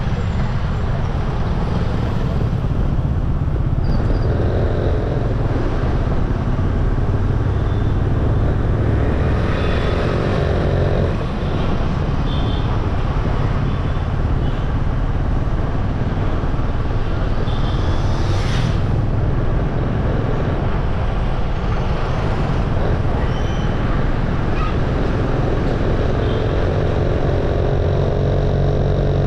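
Riding a motorbike through street traffic: a steady engine running under heavy wind and road rumble, with the engine note standing out more clearly about four seconds in and again near the end.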